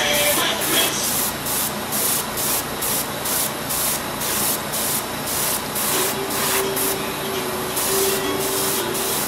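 Airbrush spraying paint in short, repeated bursts of hiss, about two a second.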